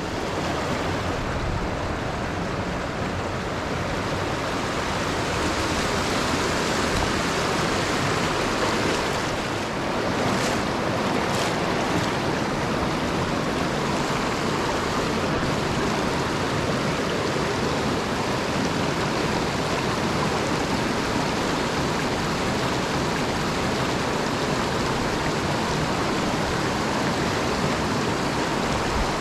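Mountain stream water rushing steadily over rocks, a constant even rush.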